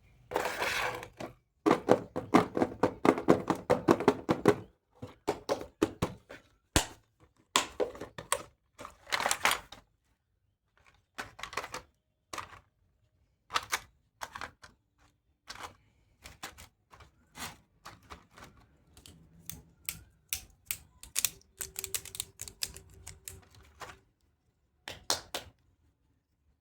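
Hard plastic toy pieces and packaging being handled: irregular clicks, taps and rattles, a dense clatter for the first five seconds, then scattered clicks with short pauses between.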